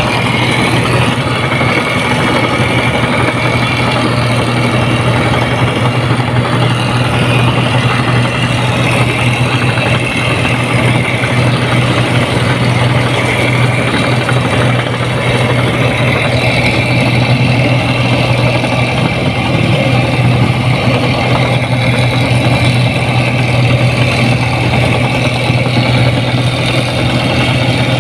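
Rice combine harvester's diesel engine running steadily at a constant pitch.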